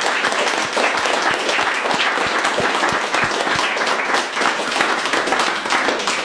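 A roomful of seated guests applauding: many hands clapping together in a dense, steady clatter.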